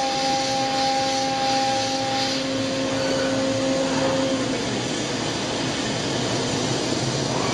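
CNC milling machine running: a steady spindle whine over a constant hiss of air and machine noise, the whine sagging and fading about four and a half seconds in as the spindle moves away from the finished part.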